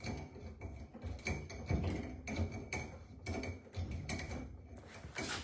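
Irregular metallic clicks and knocks of a hand tool tightening the nuts on a sink's water supply lines, with music under it.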